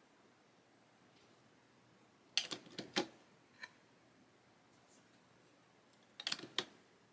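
Light clicks and taps of small hard plastic items being handled at a model-building bench: a cluster of clicks about two and a half seconds in, a single click a moment later, and another cluster near the end.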